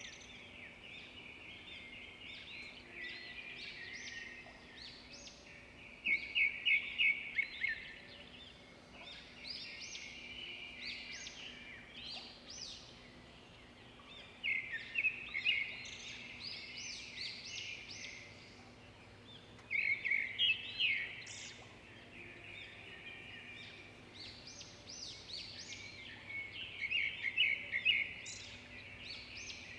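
Small birds calling: runs of rapid chirps in bursts every few seconds, with scattered higher notes between them.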